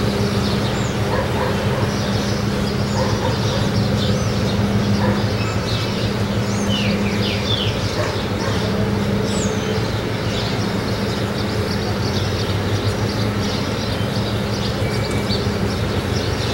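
Steady low engine drone from a passing container ship, an even hum with no change in pitch, while small birds chirp now and then over it.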